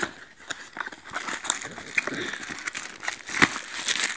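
Cardboard box being handled and opened by hand: rustling and crinkling of cardboard and packing, with many sharp clicks and scrapes, busier from about a second in.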